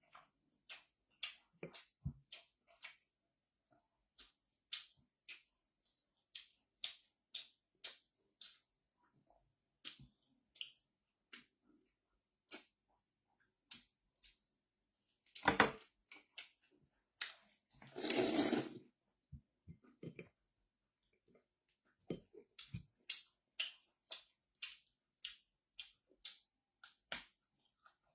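Close-up eating sounds: an irregular run of sharp mouth clicks and smacks from chewing, with two longer, noisier sounds partway through.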